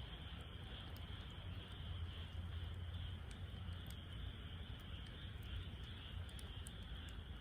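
Wood fire burning in a Snow Peak fire pit, with faint, scattered crackles over a steady low rumble and hiss.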